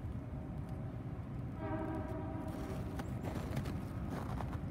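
Locomotive horn of an approaching freight train, one short blast about a second and a half in, heard over a steady low rumble.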